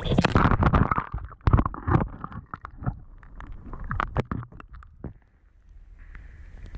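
Water splashing in an ice-fishing hole as a hand lets a brook trout go, loudest in the first second. Then come muffled gurgling and scattered knocks as the camera dips under the water.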